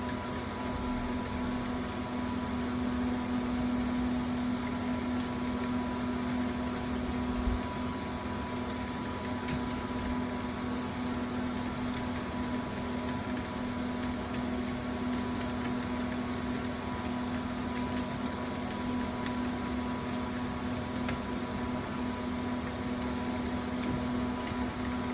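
A steady, unchanging hum with a low drone, like a fan or other small appliance running, over even background noise.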